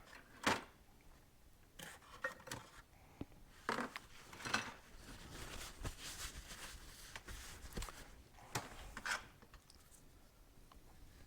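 Small metal motorcycle parts and tools being handled and set down, with scattered clinks and knocks and some rubbing between them.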